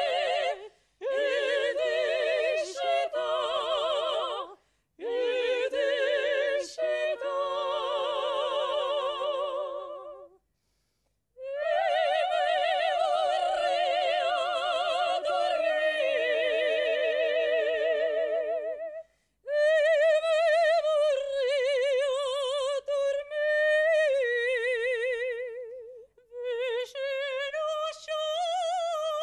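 Female vocal quartet singing a cappella in operatic style, the voices in harmony with wide vibrato, in phrases separated by short breaks.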